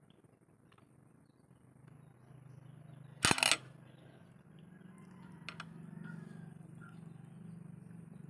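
Cooked clam shells being handled as the meat is taken out of them: one short, loud clatter about three seconds in and a couple of light clicks a little later, over a faint low hum.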